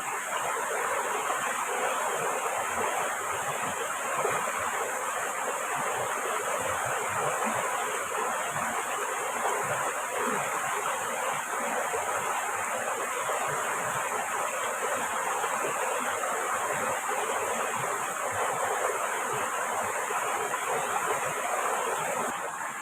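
Steady, dense rushing of water, with a high hiss that drops away just before the end.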